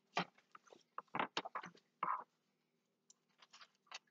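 Light taps and rustles of a sealed plastic fish packet being handled and worked at, in irregular short bursts over the first two seconds, then a few faint ticks near the end.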